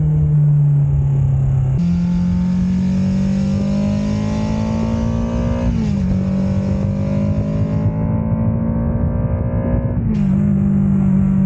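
Kawasaki Ninja 650 parallel-twin engine running loud through an Ixil RC aftermarket exhaust, accelerating through the gears. The engine note climbs steadily, then drops sharply twice, about six and ten seconds in.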